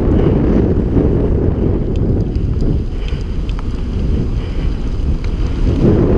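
Wind rushing over the microphone of a mountain biker's camera while riding a trail, as a steady low rumble, with a few light clicks and rattles from the bike.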